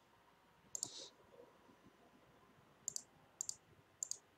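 Faint computer mouse clicks: a quick double click about a second in, then a few single clicks and another pair about half a second apart near the end.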